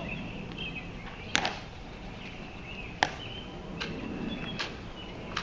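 Tomb Guards' metal-plated shoes striking the stone plaza as they march and halt: a few sharp, separate clicks a second or so apart.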